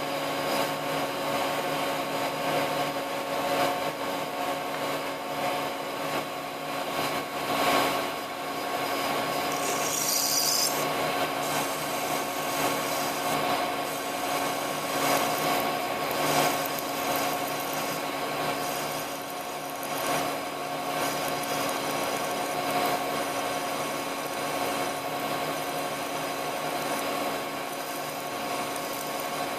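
Small lathe running while a twist drill feeds into the spinning workpiece held in a collet: a steady motor and gear whine under the scraping of the cut. A short high hiss comes about ten seconds in.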